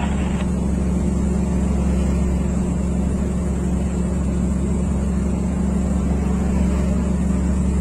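Steady drone of a heavy vehicle's engine and road noise, heard from inside its cab while cruising on the highway, with a constant low hum.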